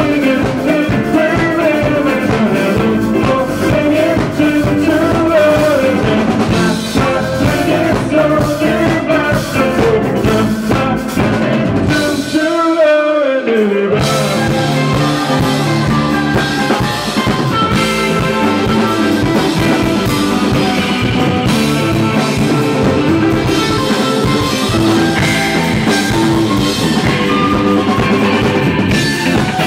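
Live rock band playing loudly: a male voice singing over electric guitars, bass and drums. About halfway through the band drops out for a moment under a falling glide, then comes back in with the guitars.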